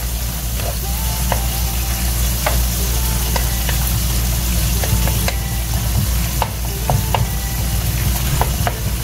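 Parsley, scallions and purple onions sizzling in hot oil in a nonstick skillet, stirred with a wooden spatula that clicks and scrapes against the pan now and then, over a steady low hum.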